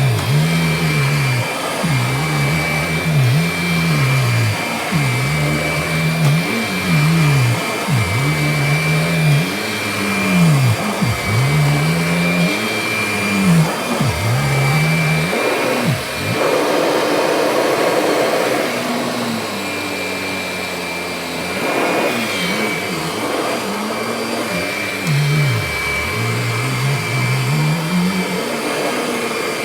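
Kirby Diamond Edition upright vacuum running on a rug, its motor pitch dipping and recovering over and over, about every one to two seconds, as it is worked back and forth, with a steady high whine above it. For a few seconds midway the dips stop and the sound turns rougher.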